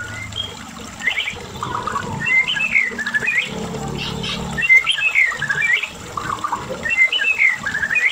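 White-rumped shama singing, a loud run of fast, warbling whistled phrases, with a similar phrase about every two and a half seconds.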